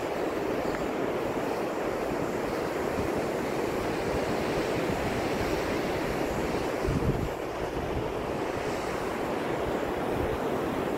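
Steady rush of breaking surf and wind, with wind buffeting the microphone in low gusts, the strongest about seven seconds in.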